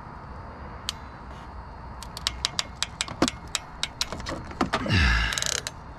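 Hand crimping tool squeezing a butt connector onto 12-gauge wire: a run of quick clicks, about five a second, starting about two seconds in, then a louder burst of noise near the end.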